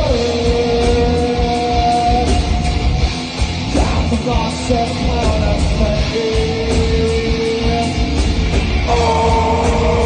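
Live rock band playing: electric guitar, bass and drums under a singer holding long notes.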